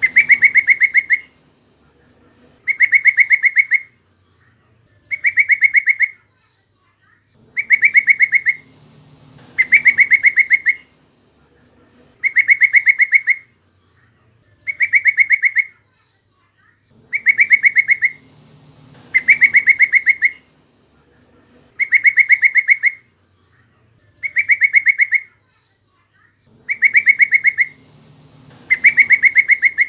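Yellow-vented bulbul call: a loud, rapid chatter of notes lasting about a second, repeated about every two seconds in a regular, looped pattern, as played to lure or set off captive bulbuls.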